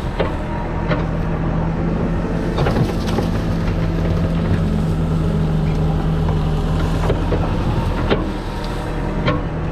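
Backhoe loader's diesel engine running steadily under work, with occasional sharp knocks and clanks from the machine working the soil.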